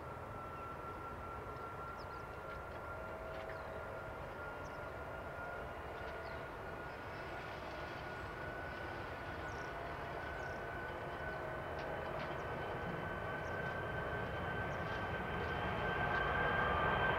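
Jet engines of an Airbus A340-500 (Rolls-Royce Trent 500 turbofans) heard from afar: a steady whine with a low rumble, its pitch creeping slowly upward as it grows gradually louder with the aircraft drawing closer.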